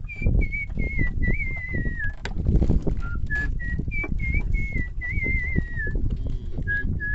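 A person whistling a tune, a single clear tone stepping up and down in short held notes with small slides between them. Underneath are a low rumble and scattered knocks.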